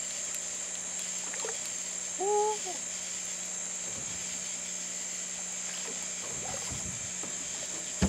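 Steady, high-pitched chorus of night insects such as crickets, with one short rising-and-falling call about two seconds in and a few low knocks near the end.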